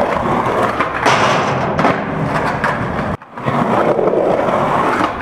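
Skateboard wheels rolling over concrete, a rough, steady roll heard close to the board, with a brief gap about three seconds in.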